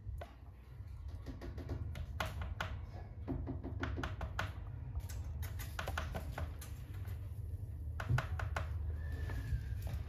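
Irregular light clicks and taps from cockatiels moving about their cage, over a steady low hum. A short, slightly falling whistled chirp near the end.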